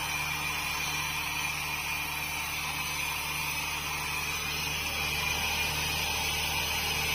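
Borewell drilling rig's engine running steadily: a low, even hum with a broad hiss over it.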